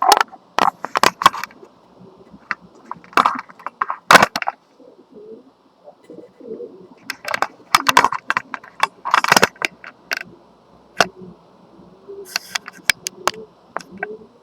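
Clatter of handling: sharp clicks and knocks in clusters as gear and the camera are moved about and set down. Between them, soft low wavering calls like cooing run in the background.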